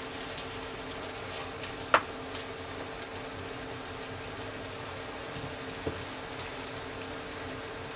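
Tomato sauce with scrambled egg simmering and sizzling steadily in a wok, stirred with a wooden spatula, under a faint steady hum. A sharp knock about two seconds in, and a softer one near six seconds.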